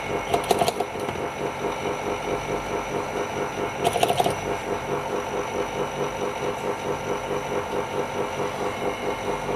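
Small vacuum pump motor of a screen separator machine running steadily, with an even pulse of about three beats a second. Short scraping sounds come about half a second in and again about four seconds in.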